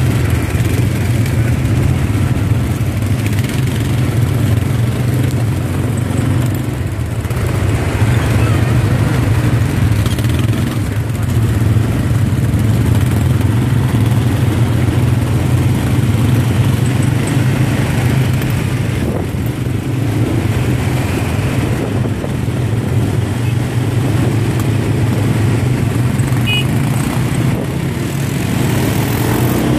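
ATV (quad bike) engine running steadily under way, with the rush of wind and road noise from riding.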